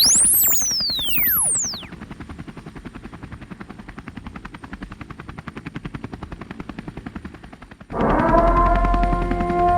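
Electronic sound: tones sweeping steeply up and down, then a fast, even pulsing, then held tones that come in suddenly about eight seconds in.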